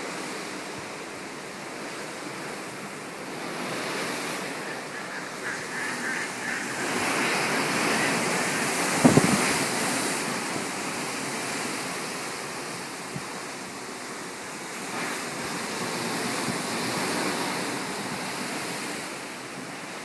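Ocean waves and the wash of the sea, with wind buffeting the microphone; the rushing swells for a few seconds and there is a brief thump about nine seconds in.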